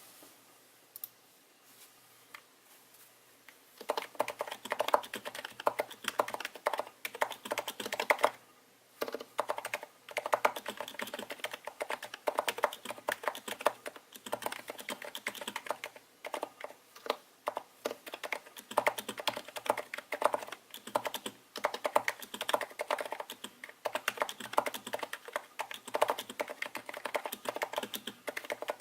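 Fast typing on a Royal Kludge RC930-87 Topre-style capacitive keyboard with HHKB rubber domes on the alpha keys and BKE heavy domes on the F-row and right-hand cluster: a rapid stream of soft, muted keystroke clicks. Only a few single keystrokes in the first few seconds, then continuous typing with brief pauses.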